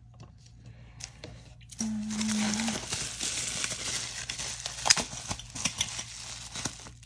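Bubble wrap and plastic packaging crinkling and rustling as they are handled, with many small crackles. A short steady hum comes in about two seconds in.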